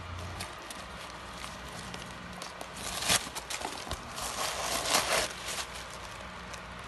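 Crumpled tissue paper stuffing crinkling and rustling as hands push into it, with a sharp burst about three seconds in and a longer spell of crackling around the fifth second.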